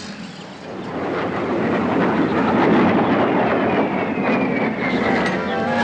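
Airplane flying overhead, its noise swelling, with a whine that falls in pitch as it passes.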